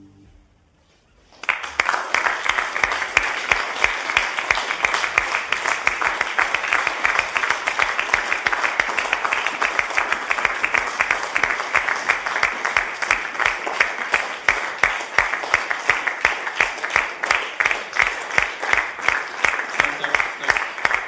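Audience applauding, the clapping breaking out suddenly about a second and a half in and carrying on steadily and loudly.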